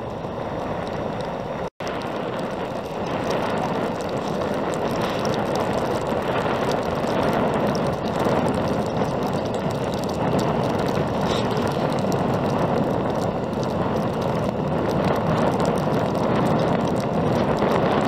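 Strong storm wind blowing over the microphone: a loud, steady rushing noise, broken by a brief gap about two seconds in.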